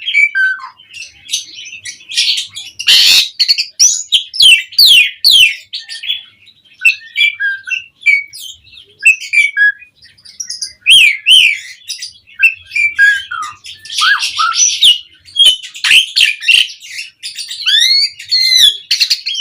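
Javan pied starling (jalak suren) singing hard: a rapid, varied string of whistled notes and chirps gliding up and down. Harsh rasping calls break in about three seconds in and again around fourteen seconds.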